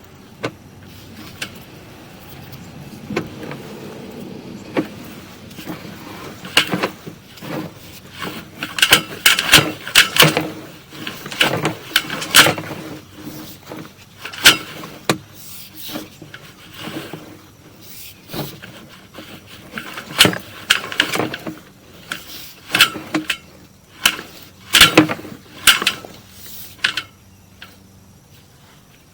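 Sewer inspection camera being pushed down a drain line: irregular sharp knocks and clatters as the camera head and push rod strike the inside of the pipe, over a faint steady hum.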